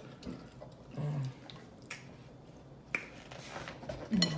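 Mouth noises of someone eating seafood: sharp, wet lip smacks and clicks every second or so, with a couple of brief low hums.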